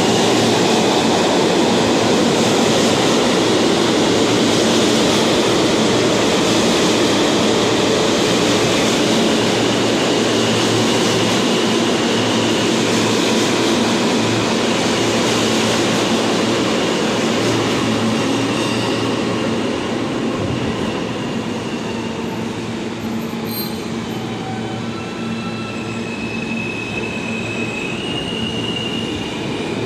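New York City Subway train running along the station platform: a loud, steady rumble of wheels on rail that eases off after about seventeen seconds. Thin, high wheel squeals come and go in the second half.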